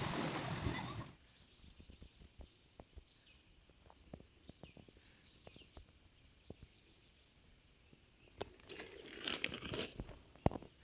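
Rustling and crunching handling noise, loudest in the first second and again near the end, with scattered small clicks and faint bird chirps between.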